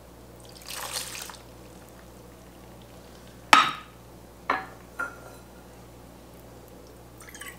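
Apple cider vinegar poured from a stainless measuring cup into a pot, a brief pour about a second in. Then a sharp metallic clink as the steel measuring cup is set down on a wooden cutting board, followed by two lighter metal clinks.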